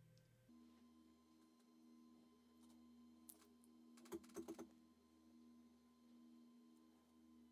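Near silence: a steady low electrical hum, broken about four seconds in by a quick cluster of four or five small clicks.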